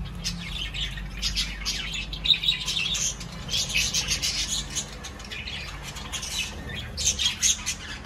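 A flock of budgerigars chattering, with many quick, sharp squawks and chirps overlapping in bursts. It is busiest in the middle and again near the end.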